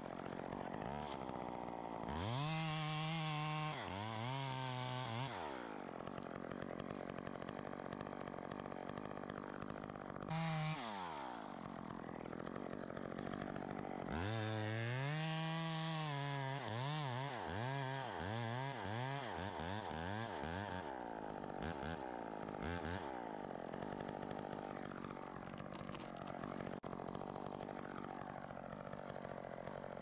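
Two-stroke chainsaw running, revved up and down repeatedly. It is held at high revs for a few seconds near the start, briefly revved again around 10 s, and then throttled up and down in quick cycles, roughly twice a second, from about 14 to 21 s. Between bursts it runs at a lower steady speed.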